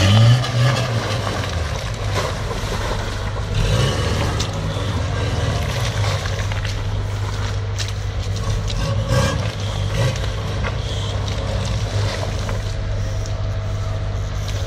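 Toyota Hilux 4x4 engine labouring up a muddy rutted slope, its revs rising and falling in surges several times. The tyres spin and churn through the mud.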